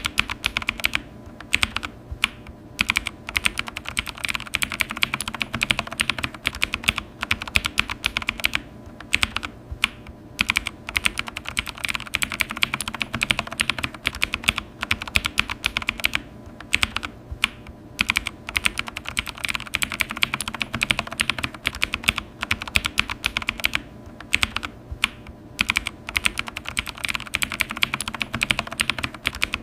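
Computer keyboard being typed on: a rapid, continuous patter of key clicks, broken by a few brief pauses.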